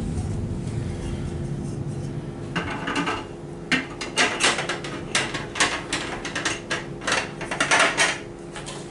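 Handling noise, then from about two and a half seconds in an irregular run of sharp clicks and knocks as gumball machine parts are fitted back together: the metal lid and globe are set in place on the machine.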